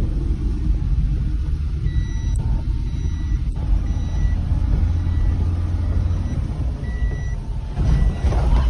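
Maruti Suzuki Eeco van's engine and road noise heard from inside the cabin, a steady low rumble while driving on a muddy dirt track. A high electronic beep repeats about once a second through the middle, and near the end the rumble turns louder and rougher.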